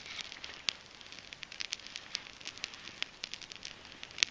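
Newly lit campfire of small dead branches and cedar tinder crackling, with frequent irregular sharp pops and snaps; the loudest pop comes near the end.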